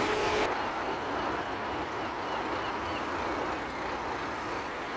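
Steady road traffic noise from vehicles on the street; a brighter hiss stops abruptly about half a second in.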